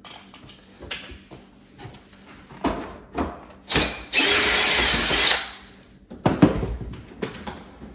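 Cordless drill-driver backing out short screws from an oven door panel: two short spins, then a steady whir lasting just over a second, followed by clicks and knocks as the screw and panel are handled.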